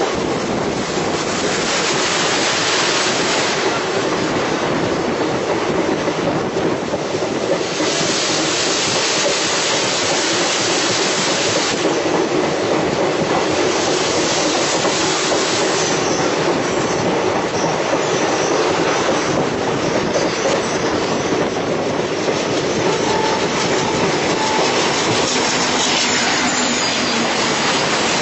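Train running at speed: steady wheel-on-rail noise, heard from aboard the moving train.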